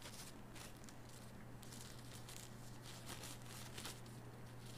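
Faint handling noises from an earphone box and its cables, a few light rustles and ticks, over a steady low electrical hum.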